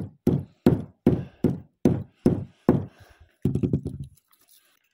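Hammer pounding on an OSB board: eight heavy, dull thuds at about two to three a second, then a quick flurry of lighter blows just before four seconds in, after which the pounding stops.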